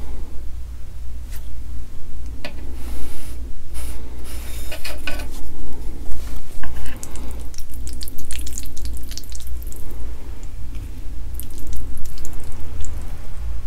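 Wooden chopsticks working through sauced instant noodles in a metal tray: wet, sticky noodle sounds with scattered clicks and taps. A steady low hum runs underneath.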